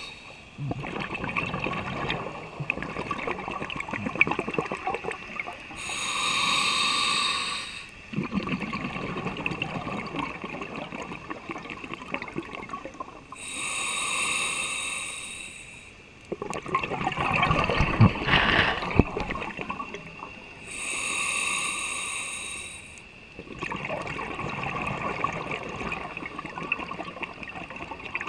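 Scuba diver breathing through a regulator underwater, in a slow, regular cycle. Three inhalations, each a hissing draw of about a second and a half with a steady whine in it, alternate with several seconds of crackling, gurgling exhaust bubbles.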